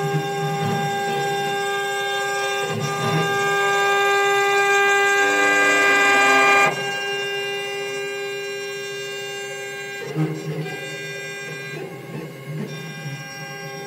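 CNC router spindle running with a steady high whine while it carves a wooden cylinder turning on the rotary axis. The cutting noise builds and is loudest in the middle, then drops off suddenly about seven seconds in, leaving the spindle whine.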